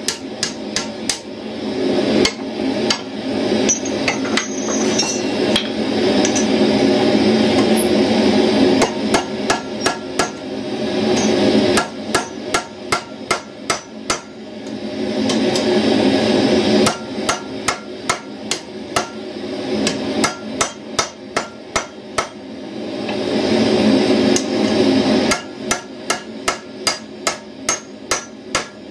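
Hand hammer riveting the pivot of a pair of blacksmith's tongs on the anvil, setting a hot rivet. Quick, sharp metal-on-metal blows come about four a second in several runs with short pauses, over a steady rushing noise from the forge that swells and fades.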